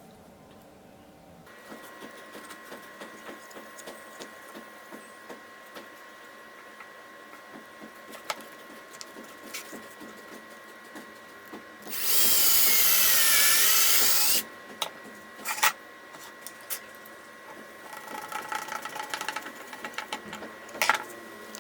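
A power tool runs in one loud burst of about two and a half seconds, its whine wavering in pitch as the load changes. Around it there is a faint steady hum, with a few sharp clicks and knocks and some crackling afterwards.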